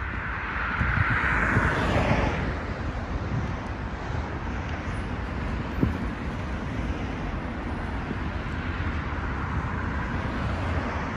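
City street traffic, a steady wash of passing vehicles with a constant low rumble; it swells louder for about a second and a half near the start.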